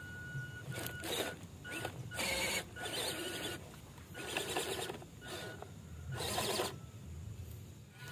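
Small electric motor and gear drive of a WPL C54 RC crawler whining in short bursts of throttle, about five spurts, as it climbs over rocks.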